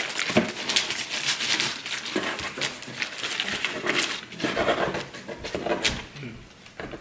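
Tissue paper rustling and crinkling as hands dig through a gift box, in irregular handfuls, dying down near the end.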